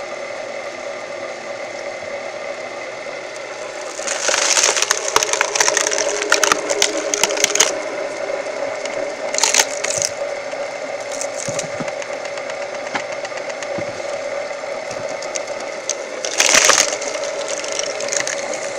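A firewood splitting machine's engine runs with a steady hum while wood cracks and splinters in bursts, loudest from about four to eight seconds in and again near the end, as logs are split.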